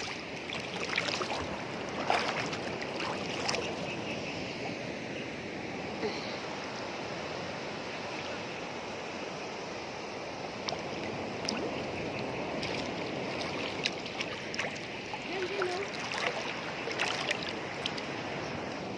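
Steady wash of sea water, waves breaking and lapping on the shore, with scattered small splashes and ticks.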